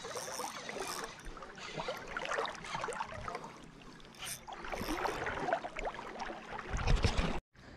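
Shallow sea water lapping and splashing, with many small crackles. Near the end a loud low rumble hits the microphone, then the sound cuts out briefly.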